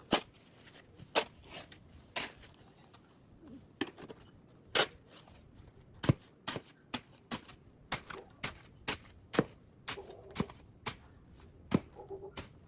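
Short, sharp crunches of packed snow, irregular at first, then about two a second through the middle.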